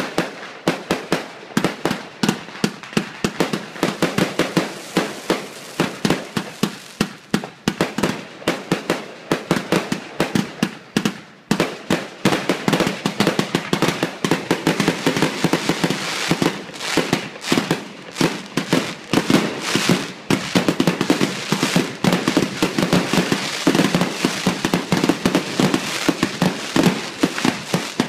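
Aerial fireworks in a finale barrage: rapid bangs, several a second, mixed with crackling. After a brief lull about eleven seconds in, they become denser and almost continuous.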